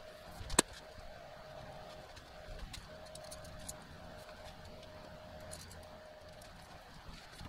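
Faint steady hum with one sharp click about half a second in, followed by a few light ticks and knocks from handling work.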